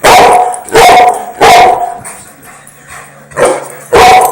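A dog barking during play with a plastic ring: five loud barks, three in quick succession, then a pause of about a second and a half, then two more.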